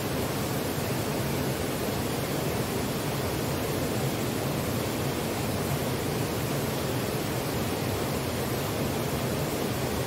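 Rushing water from a waterfall and its river: a steady, unbroken roar with no change.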